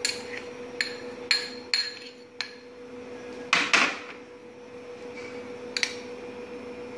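Spoon clinking and tapping against glass bowls while powdered sugar is scooped out, several sharp clinks with the loudest about three and a half seconds in, over a steady low hum.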